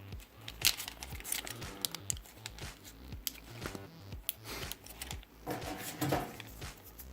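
Small plastic clicks, taps and rubbing as memory cards are handled and pressed into the rubbery slots of a hard plastic memory card case. The clicks are scattered and irregular, with a sharp one about a second in and a busier burst of handling near the end.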